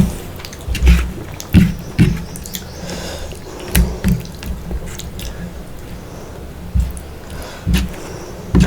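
Close-miked wet chewing and mouth sounds of someone eating rice and fish curry: irregular wet smacks and clicks with low thumps, a few each second at times and with short gaps between.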